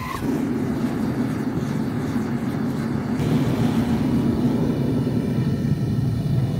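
Gas burner of a homemade metal-melting furnace running with a steady rushing noise, just lit. The hiss turns slightly duller about three seconds in.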